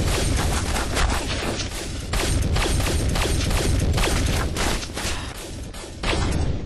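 Film-soundtrack gunfire: a dense, rapid volley of shots with heavy low booms. It eases off about five seconds in and ends in a last loud burst near the end.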